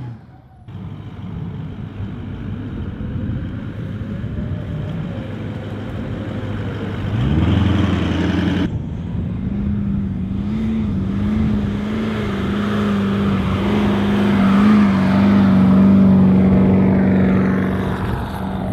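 Toyota LandCruiser 200 series 4.5-litre twin-turbo V8 diesel driving under load through soft sand dunes. After a cut about nine seconds in, a louder, steady engine drone swells as the vehicle climbs closer.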